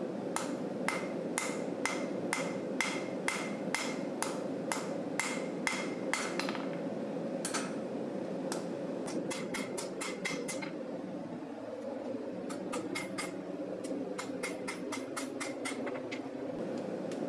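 Hammer blows on hot knife steel on an anvil, drawing out the blade's heel. The strikes come about two a second with a short ring, then in quicker runs broken by brief pauses, over a steady hum.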